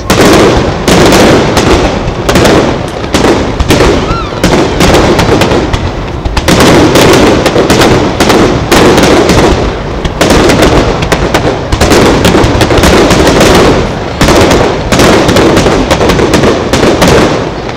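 Fireworks display: a rapid, near-continuous barrage of aerial shells bursting and crackling, very loud, starting abruptly and stopping just as suddenly near the end.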